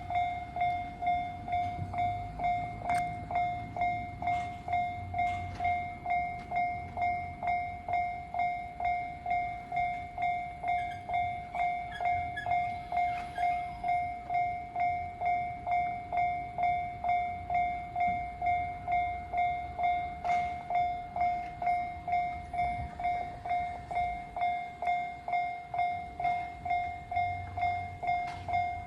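Japanese level-crossing warning bell ringing steadily, one pitched clang repeated evenly a little under twice a second: the crossing is closed for an approaching train.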